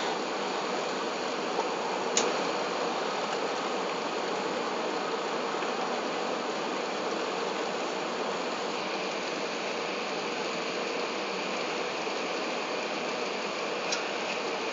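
Steady rushing cabin noise inside an Airbus A380 on approach: engine and airflow noise heard through the fuselage. A short click about two seconds in and another near the end.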